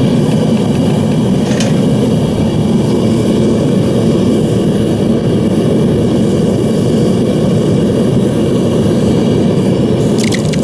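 Devil Forge melting furnace running, its torch and blower making a loud, steady rush of burner flame and air. A run of crackly scraping clicks starts near the end.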